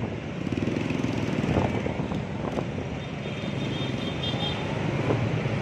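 Engines of a convoy of scooters and small motorcycles running together at road speed, a steady mixed engine noise.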